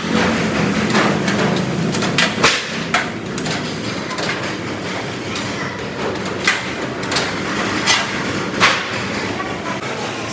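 Factory work noise: irregular sharp knocks and taps, like metal parts being struck and handled, over a steady background din.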